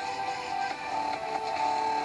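YouTube channel intro music playing back through computer speakers, with steady sustained tones and no speech over it.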